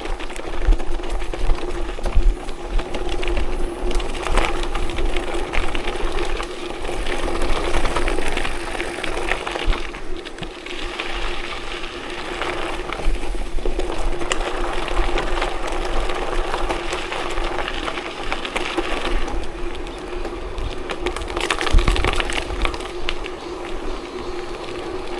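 Tyres rolling over a loose gravel forest road, giving a continuous crunching crackle over a steady hum, with wind buffeting the microphone.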